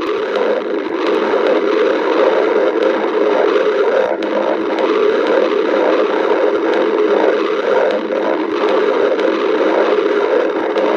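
Stomach growling: a continuous rumbling gurgle that goes on without a break, with a faint, uneven pulsing through it.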